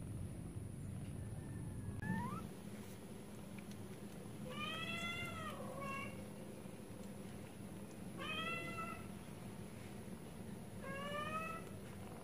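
Kittens meowing: five separate high meows, a short rising one, a long arching one followed by a short one, then two more several seconds apart.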